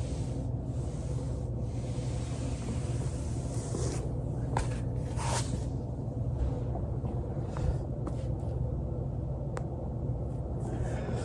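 Body rolling on a foam roller: rubbing and scraping over a steady low hum, with a few short clicks in the middle stretch.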